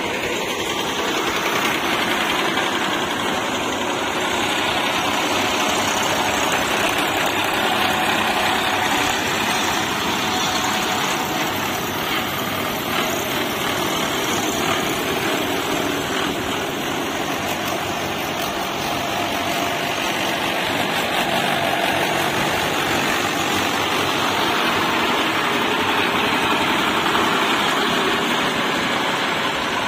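Diesel tractor engine running steadily, loud and even throughout.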